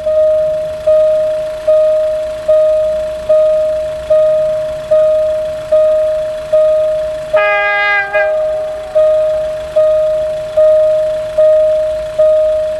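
Level-crossing warning bell dinging steadily, one strike about every 0.8 seconds, each ringing out before the next, as a train approaches. About seven and a half seconds in, the locomotive gives a short horn blast of under a second.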